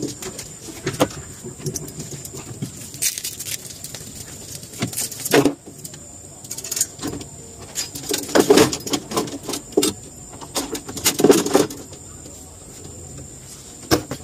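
Fishing rods, reels and tackle being handled in a small boat: irregular clattering and rattling knocks every second or two, loudest around the middle and about three-quarters of the way in, over a faint steady high whine.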